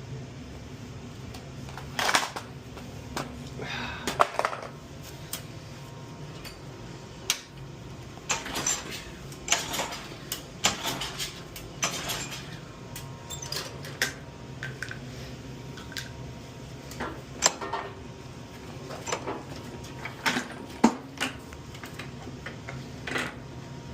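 Irregular metallic clinks, scrapes and rattles as tools and lawn mower engine parts are handled, over a steady low hum.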